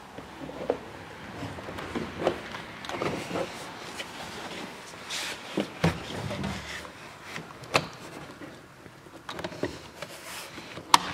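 Plastic door-trim clips clicking and the car's door trim panel knocking and rustling as it is pried loose by hand, with scattered sharp clicks, the loudest a few seconds apart.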